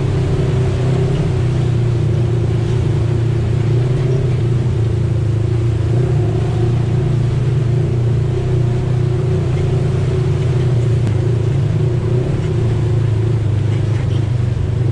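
Polaris RZR side-by-side engine running at an even speed, heard from inside the cab: a steady low drone whose pitch holds level.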